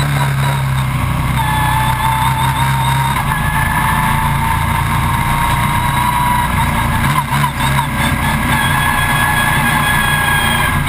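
Stock Car Brasil race car's V8 engine running steadily, heard from inside the cockpit as the car comes in for a pit stop. Its pitch creeps slowly upward, with a short break about seven seconds in.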